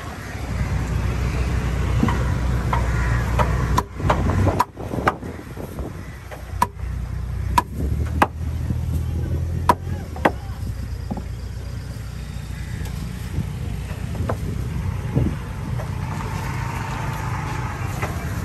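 A steady low rumble with about eight sharp knocks, irregularly spaced, from about four seconds in to about ten seconds in.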